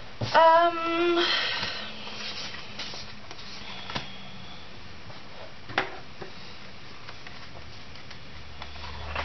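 A woman's short hummed 'mm' on one steady note near the start, followed by a breath. Then two light taps from sticker sheets being handled on a desk.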